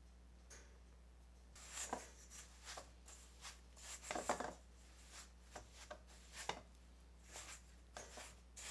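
A spatula scraping and pressing stiff gum paste dough around a stainless steel mixing bowl, in irregular strokes that start about a second and a half in.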